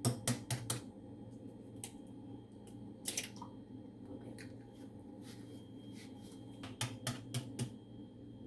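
Eggs tapped against the rim of a bowl to crack them open: a quick cluster of sharp taps at the start and another about seven seconds in, with a few single clicks between.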